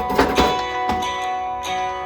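Background music led by a plucked acoustic guitar, with a few sharp knocks in the first second.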